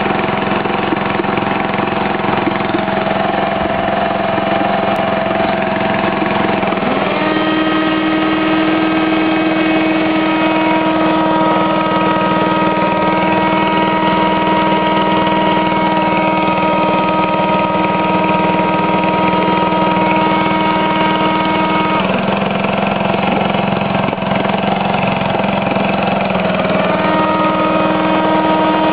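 Homemade generator running with a steady engine-like hum. About seven seconds in, a higher steady whine joins, drops away around twenty-two seconds, and comes back near the end: a vacuum cleaner running off the generator's output during a regulator test.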